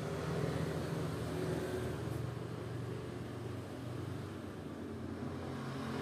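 Steady low engine hum of a motor vehicle.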